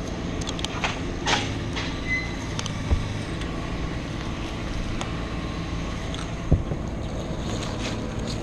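An engine running steadily, with scattered clicks and two sharp knocks.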